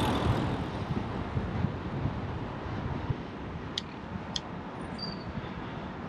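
Wind and road rumble on the microphone of a bike-mounted GoPro while cycling, easing off over the first few seconds. Two sharp clicks come about four seconds in.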